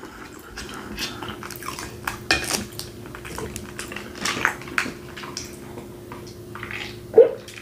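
Knife and fork clicking and scraping on a plate, with close-up eating sounds, over a faint steady hum. About seven seconds in comes one short, louder vocal sound after a drink.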